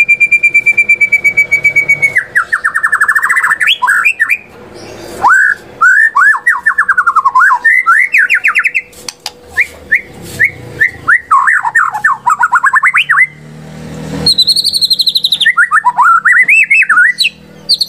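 White-rumped shama (murai batu) singing loudly in a varied song. It opens with a steady high note repeated rapidly, then moves into fast trills and sweeping whistled phrases, with two short pauses between bursts.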